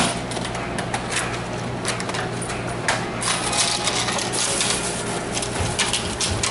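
Coins and the cash register drawer clinking as a cashier counts out change, with scattered sharp clicks and brief rustles over a low steady hum.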